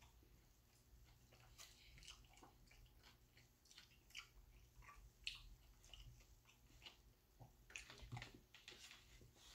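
Faint chewing and mouth sounds of a person eating fried food, soft scattered clicks, with a slightly louder cluster about eight seconds in as he takes another bite.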